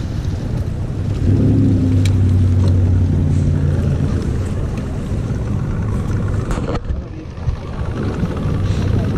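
A motor engine running steadily with a low hum, strongest for a few seconds after about a second in, over a rumbling noise.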